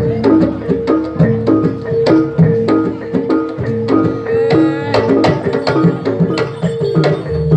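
Live Javanese jaranan gamelan music: hand-drum strokes in a busy rhythm over repeating tuned metal notes of the accompanying ensemble.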